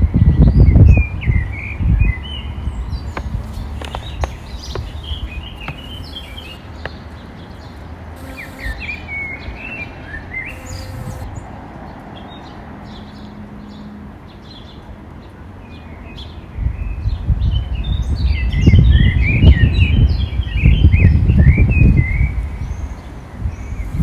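Small birds chirping and twittering in several busy bursts, with a loud, uneven low rumble at the very start and again through most of the last several seconds.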